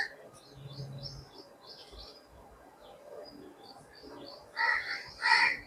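Birds chirping faintly, then a run of loud, harsh, repeated bird calls near the end.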